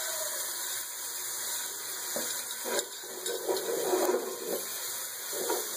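Onions, green chillies and tomatoes frying in oil in a metal pot, a steady sizzle on a lowered flame. From about two seconds in, a ladle clicks and scrapes against the pot a few times.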